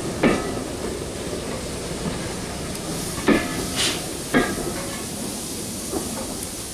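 Railway coaches rolling past slowly, their wheels giving a few sharp, irregularly spaced clanks over rail joints and points, over a steady hiss of steam from a tank locomotive.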